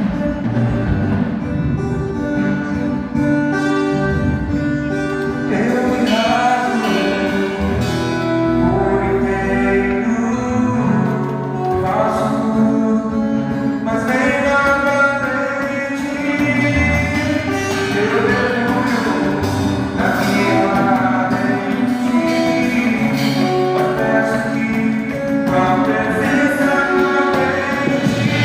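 Worship music: a melodic lead line that glides and wavers over sustained low accompaniment, playing without a break.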